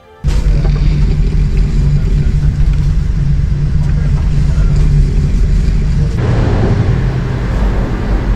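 Loud, steady rumble of a moving passenger train, heard inside the carriage. It cuts in suddenly just after the start, and its higher part changes about six seconds in.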